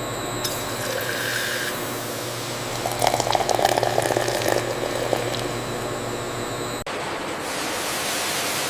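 Bottle-filling line running: a steady machine hum with liquid filling, and a stretch of rapid clattering about three seconds in. The sound cuts abruptly near the end to a steady hiss.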